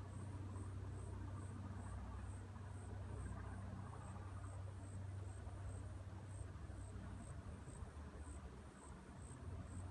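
An insect calling in a steady, even rhythm of short high-pitched chirps, about two to three a second, over a low steady rumble.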